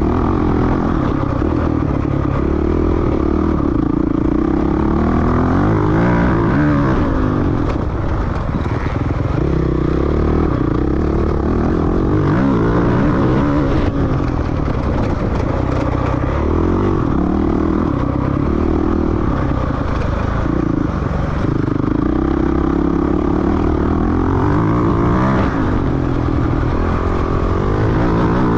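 Dirt bike engine running hard on an off-road race test, its pitch rising and falling again and again with throttle and gear changes.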